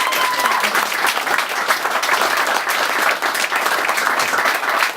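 Audience applauding, a dense steady clapping of many hands at the end of a speech.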